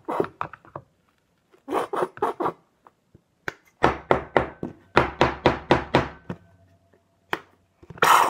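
A plastic dish-soap bottle being squeezed and shaken over a plastic tub: short knocks and thuds in three bursts, the longest a quick run of about five or six strokes a second from about four to six and a half seconds in.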